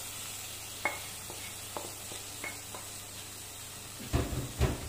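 Marinated mutton sizzling in hot oil in a steel pressure cooker as it is browned, with a few light clicks of a wooden spoon, then louder stirring and scraping of the meat near the end.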